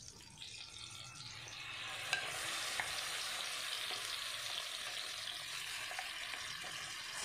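Yogurt-marinated chicken hitting hot butter and oil in a wok and frying: a sizzle that swells about two seconds in and then holds steady, with a few small pops.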